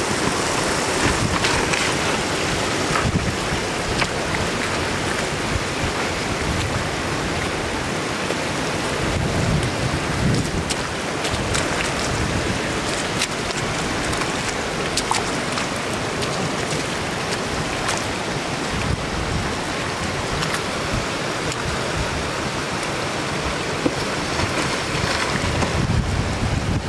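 Shallow floodwater running steadily across a road surface, with short splashes and knocks now and then as hands and a bamboo fish trap work in the water.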